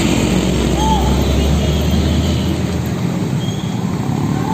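Heavy road traffic: truck engines running with road noise. A deep engine rumble drops away about halfway through.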